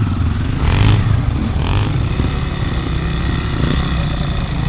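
Enduro motorcycle engine running steadily, with two brief louder patches about one and two seconds in.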